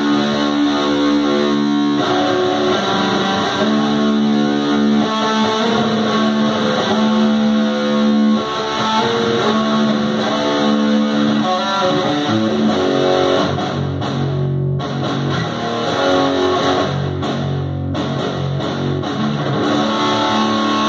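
Jackson electric guitar playing a metal riff through a Roland Cube amp, with held chords and picked notes. The sound breaks off briefly twice, about 14 and 18 seconds in.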